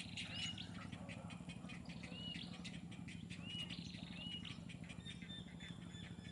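Birds calling: short, arched whistled notes repeated every second or two, then a quicker run of short high notes in the second half. A faint steady low hum runs underneath.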